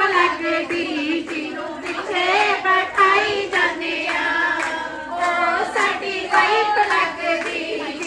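A woman singing Punjabi boliyan (folk couplets) through a microphone, with a group of women clapping along by hand.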